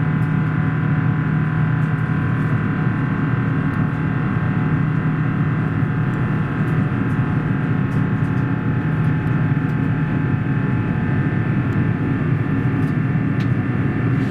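Airbus A350's Rolls-Royce Trent XWB turbofan engines heard from inside the cabin beside the wing, running steadily: a loud, even drone with a low hum under several steady whining tones.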